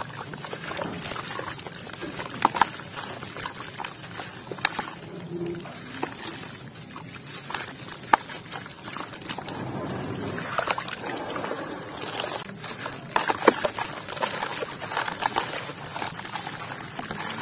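Dry red dirt crumbled by hand into a basin of muddy water: gritty crumbs trickling and dropping into the water, wet mud sloshing and squelching between the fingers, with scattered sharp crunches.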